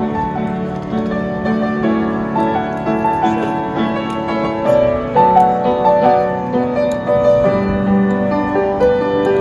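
Acoustic upright piano played by a street pianist: a melody of stepping notes over held lower notes.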